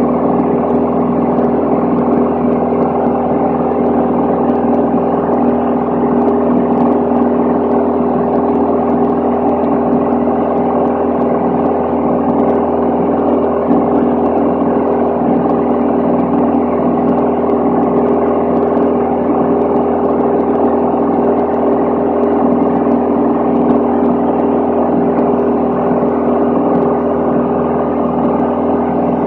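Steady cabin drone of a Van's RV-10's single piston engine and propeller in level cruise, a constant pitched hum with airflow noise that holds unchanged throughout.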